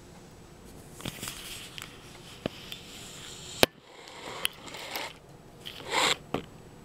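Scattered rustling and clicking, with one sharp click about halfway through and a short, louder rustle near the end.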